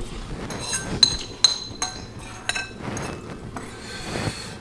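Eating utensils clinking against bowls as noodles are eaten: a string of irregular light clinks with a short bright ring.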